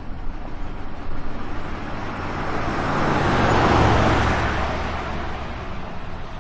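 A van driving past: engine rumble and tyre noise swell up, are loudest about four seconds in, then fade away.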